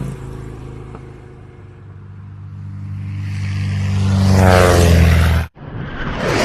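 An engine drawing nearer, growing steadily louder, then cut off suddenly about five and a half seconds in. A new noisy sound follows just after.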